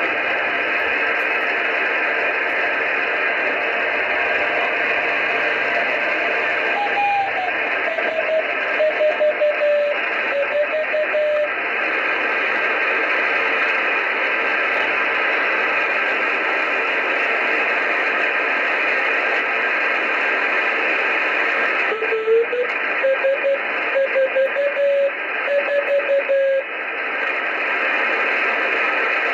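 Steady hiss from an amateur radio receiver, through which the RS-44 satellite's CW beacon comes twice as a thin Morse-keyed tone. The first time it slides down in pitch and the second time it slides up: Doppler drift from the moving satellite.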